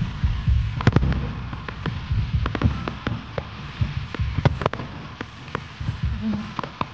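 Aerial fireworks going off in quick succession: many sharp cracks and crackles over a low booming, the loudest crack about a second in.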